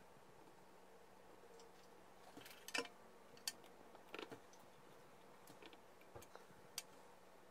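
A few faint, scattered clicks and light metallic taps as fingers work the wires in the alligator clips of a helping-hands soldering stand, the sharpest about three seconds in, over a faint steady hum.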